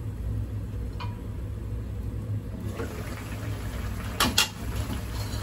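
Paneer and spinach curry simmering in a frying pan, bubbling more audibly from about halfway through, over a steady low hum. Two short clatters near the end.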